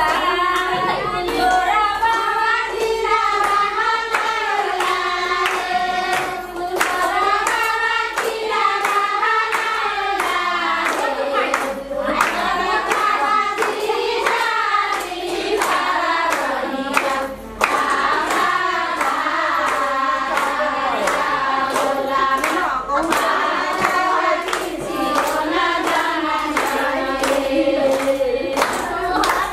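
A group of people singing together in unison, clapping their hands to a steady beat of about two to three claps a second.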